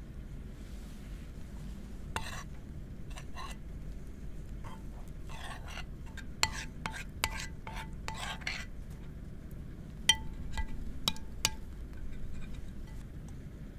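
Metal spoon stirring flour and water into a batter in a ceramic bowl, scraping and clinking against the bowl. There are sharp ringing clinks about six seconds in and again around ten to eleven seconds.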